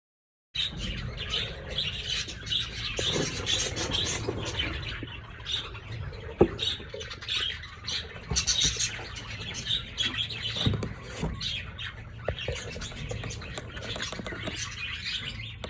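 A flock of budgerigars chattering, chirping and squawking without pause, with a few sharp knocks, the loudest about six seconds in.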